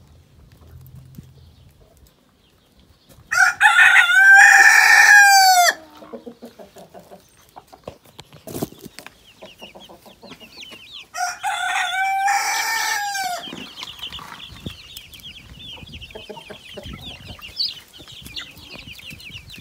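A rooster crowing twice, about eight seconds apart: each crow is a loud, held, pitched call that drops at the end. From about halfway through, faint high rapid chirping carries on underneath.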